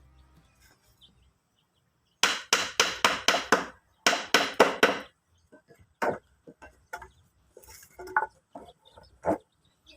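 Two quick runs of sharp knocks, about five or six each, then scattered lighter taps and clicks.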